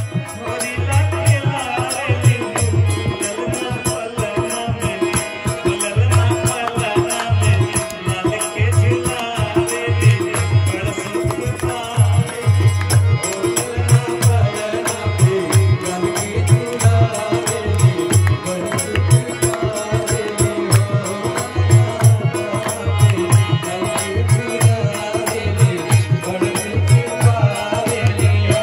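Live Bhojpuri sohar folk song: a man singing to a harmonium, with a dholak drum keeping a steady beat.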